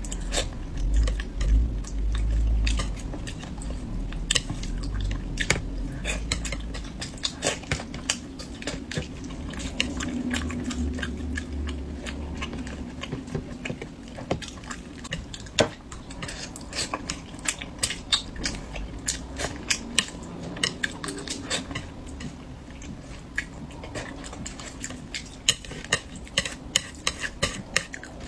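Close-miked eating: a person chewing and biting food, with many short clicks throughout and occasional clinks of utensils against a dish. A low rumble lies under the first several seconds.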